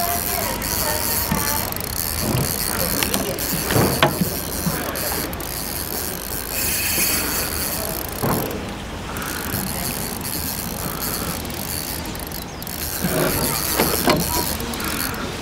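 A spinning reel being cranked, its gears whirring and clicking, as a hooked fish is reeled in.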